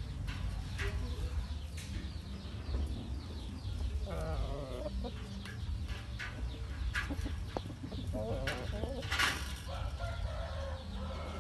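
Chickens clucking in short calls, about four seconds in and again about nine seconds in, over a steady low hum, with scattered sharp clicks.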